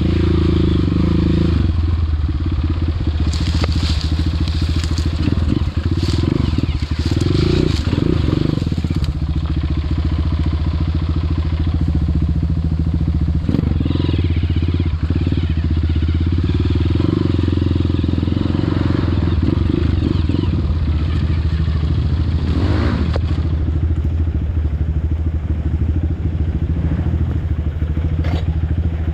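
Trail motorcycle engine running steadily under throttle, with bursts of crackling and scraping over it a few seconds in and again later on.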